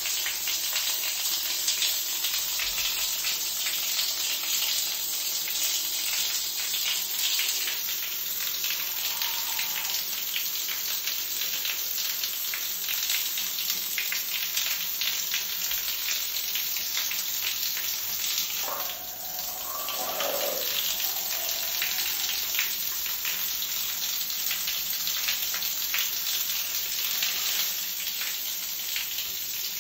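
Shower water spraying down onto a wet tiled floor and onto feet in soaked socks: a steady splashing hiss full of fine crackles.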